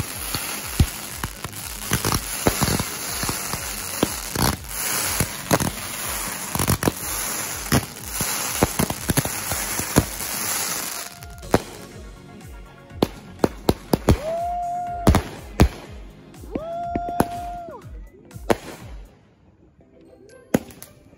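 A consumer firework cake firing: a dense hissing spray thick with rapid crackles and bangs for about the first eleven seconds, then separate loud bangs with two short whistles between them, dying down near the end.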